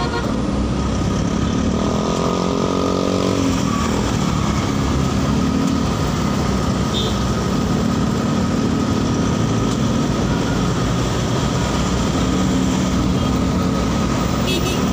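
Steady engine and road noise of a vehicle moving through city traffic, with a brief pitched sound about two seconds in.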